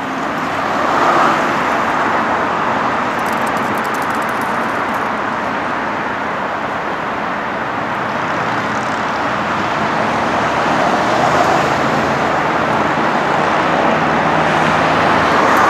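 Steady road traffic: cars passing on a busy city road, swelling a few times as vehicles go by.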